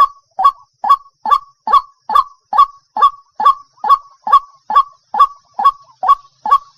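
White-breasted waterhen calling: a loud, steady series of short, harsh notes, a bit more than two a second.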